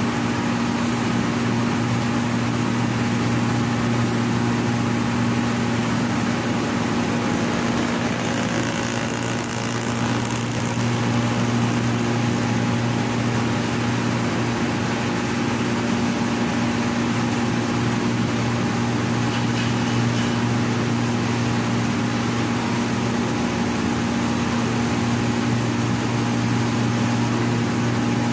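Corn milling machine running steadily with a constant droning hum.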